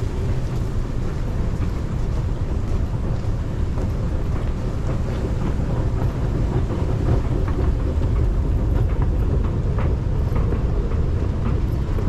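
Steady low rumble of an MRT train station, with scattered faint clicks over it.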